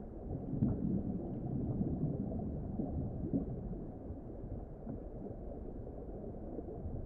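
Underwater ambience: a low, muffled rumble of moving water, with a few faint clicks.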